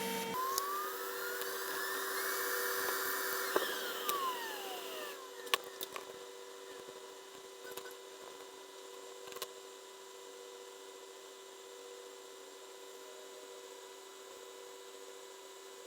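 A small high-speed electric tool motor spins up with a rising whine, runs briefly, then winds down in pitch about four to five seconds in. A steady electrical hum and a few light clicks follow.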